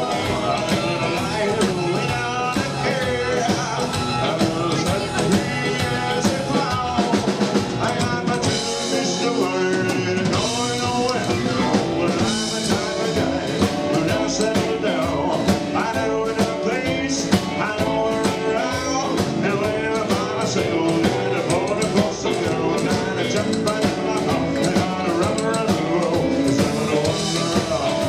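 Live rock and roll band playing: electric guitar, keyboard and drum kit, with singing.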